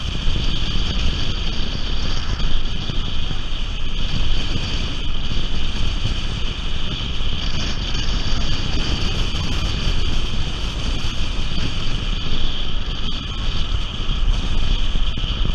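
Wind rushing over the microphone of a camera mounted on the outside front of a moving car, over a steady low rumble of road and tyre noise.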